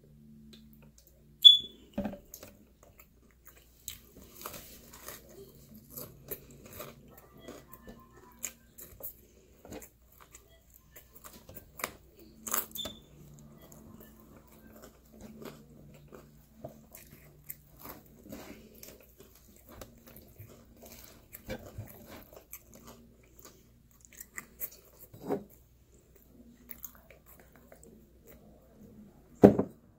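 Close-up eating sounds of a person chewing and biting pizza, with scattered small clicks and crunches, starting with swallows from a drink bottle. A sharp click comes about a second and a half in, and a loud knock comes just before the end.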